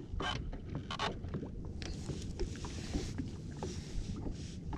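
Low, steady outdoor noise of wind and water around a small fishing boat on open water, with no engine tone, and a few faint clicks and knocks.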